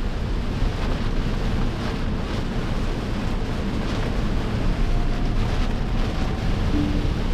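Steady rain and wet-road tyre noise from a Tesla Cybertruck driving at speed, with a low rumble.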